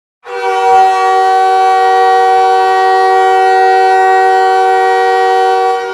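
Goal horn sounding one long, steady blast: a chord of several held tones that starts abruptly and lasts about five and a half seconds.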